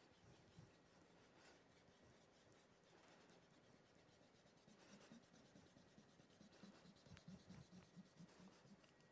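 Faint scratching and rubbing of white chalk on a black drawing board as fingertips smudge and blend the marks, becoming a run of quick back-and-forth strokes, about five a second, in the second half.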